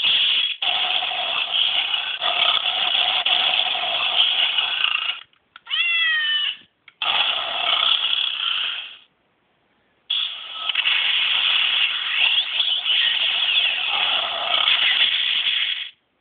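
Electronic lion-roar sound effects from a Gokaiger DX toy's small speaker: long growling roars, broken by a short warbling pitched cry about six seconds in and a brief silence about nine seconds in.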